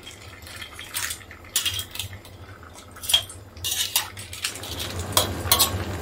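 Metal spatula scraping and knocking against a stainless steel wok as shell-on crabs, clams and prawns are stirred and turned, in irregular clinks and scrapes.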